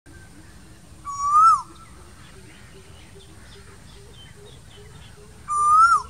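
Male Asian koel calling twice, about a second in and again near the end: each call is a loud, clear whistle that rises in pitch and then drops away. Faint chirps sound in the background.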